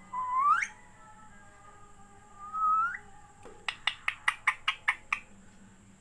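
Rose-ringed parakeet whistling two rising notes, one right at the start and one about halfway, then a quick run of about nine short sharp clicking calls.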